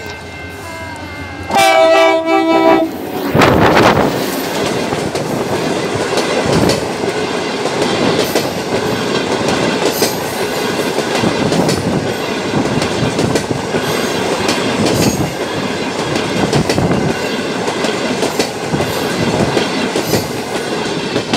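Train sounds a brief horn blast, just over a second long, about two seconds in, then passes close at speed: a loud rush as the head end goes by, followed by the steady rumble of the coaches with regular clickety-clack of wheels over rail joints.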